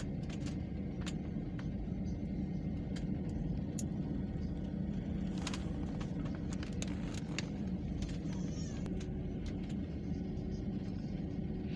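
Airliner's steady low rumble, with scattered faint clicks.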